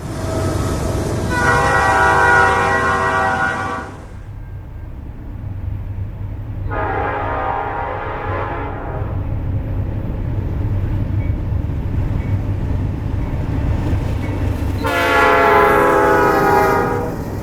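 Nathan Airchime P5 five-chime locomotive air horn sounding three long blasts of two to three seconds each, the last one dipping slightly in pitch. A low steady rumble from the train runs underneath.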